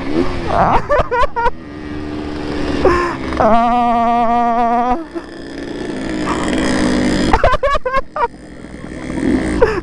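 Yamaha RX-King 135 two-stroke single-cylinder motorcycle engines running hard on the road, with wind on the microphone. One engine holds a steady high-revving note a few seconds in, then the engine sound builds again toward the end.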